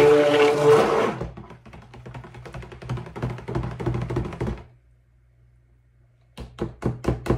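Stick blender motor running in cold-process soap batter, a steady whine that cuts off about a second in, as the batter is blended to light trace. The blender head then churns through the batter for a few seconds. Near the end, a quick run of sharp knocks as the blender is tapped against the plastic bowl.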